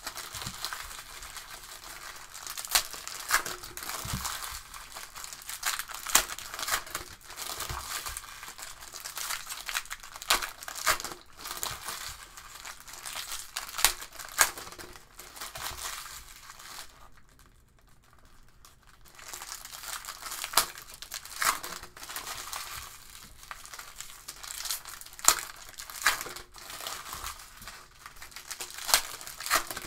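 Hands tearing open and crinkling the wrappers of Panini Select soccer card packs, with sharp clicks and rustles as the cards are handled. The crinkling stops briefly a little past halfway.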